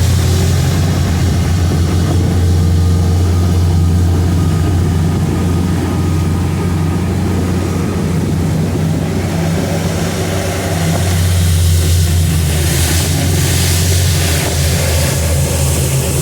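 Yamaha outboard engines running hard under throttle as the boat climbs onto plane, a loud steady low drone, with a few stretches of hiss late on.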